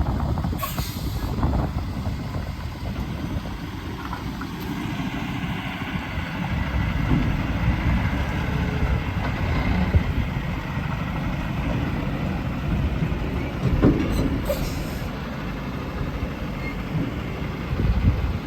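Semi truck's diesel engine running with a steady low rumble while reversing, with two short hisses of air, about a second in and again around fourteen seconds in.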